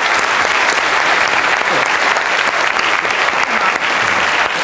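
A large audience applauding, a dense, steady clapping.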